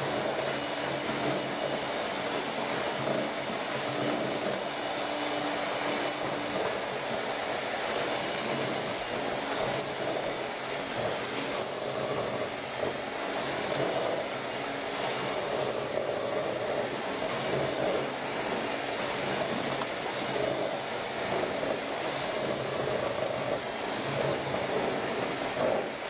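Electric hand mixer running steadily, its beaters churning a stiff mix of butter and granulated sugar in a stainless steel bowl.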